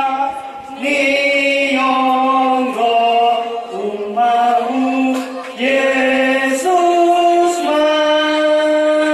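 A man chanting into a microphone in a slow ceremonial chant, holding long notes that each last about a second before stepping to a new pitch, with short breaths between phrases.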